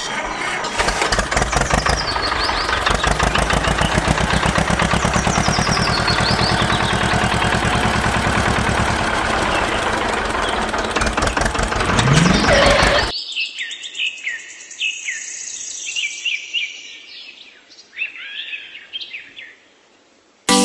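Tractor engine running with a fast, even chugging beat, rising in pitch just before it cuts off suddenly about thirteen seconds in. Birds chirp afterwards, fading toward the end.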